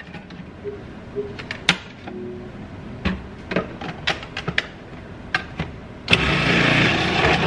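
Cuisinart food processor grating potatoes through its shredding disc. Light clicks and knocks from the plastic feed tube and pusher as potatoes are loaded, then about six seconds in the motor runs loudly for about a second and a half as a potato is pushed through.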